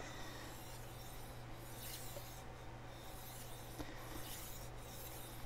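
Faint gritty rasping of a chef knife's steel edge drawn back and forth across a wet whetstone, in repeated strokes, as the burr is raised on the second side.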